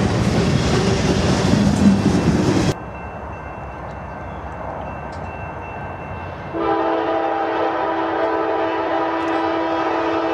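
Freight cars rolling past close by, a loud rumble of wheels on rail that cuts off suddenly about three seconds in. After a quieter stretch, an approaching diesel locomotive's air horn sounds one long, steady chord from about six and a half seconds in to the end.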